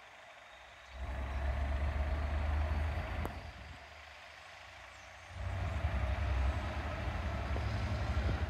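Wind buffeting the microphone in two gusts, about a second in and again past the middle, each a heavy low rumble that starts and stops abruptly. A Class 66 diesel freight train approaches underneath.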